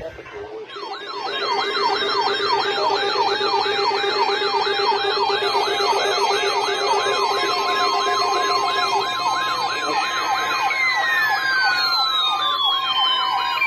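Electronic yelp siren rising and falling quickly, about three times a second, over a steady low tone. Near the end a steady high tone joins and several tones glide downward.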